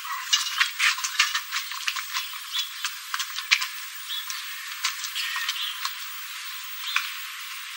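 Irregular rattling and clattering, many small knocks and clicks in quick succession, like loose gear being jostled and handled. The sound is thin, with no low end.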